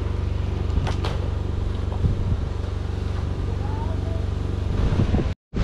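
An engine running steadily at a constant speed, giving an even low hum, with a short sharp click about a second in. The sound cuts out abruptly just before the end.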